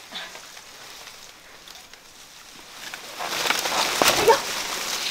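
Banana plant leaves and stalk rustling loudly with a few sharp cracks as a person climbs down the plant, starting about three seconds in, with a brief squeal in the middle of it.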